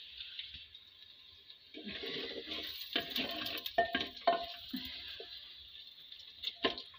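A spoon stirring and scraping onions and ginger frying in oil in a clay pot, with sharp clicks and knocks against the pot from about two seconds in, over a steady high hiss.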